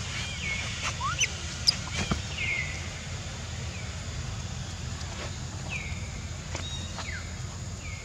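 Short high chirping animal calls that fall in pitch, repeated every second or two over a steady low hum, with a sharp click about two seconds in.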